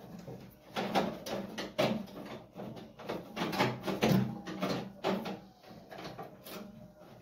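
Irregular metal clicks, knocks and rattles from hands handling the pilot and burner parts inside a gas boiler geyser's burner compartment.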